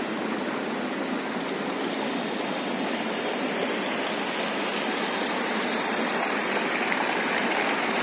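Sea surf washing up on a sandy beach: a steady rushing of breaking waves.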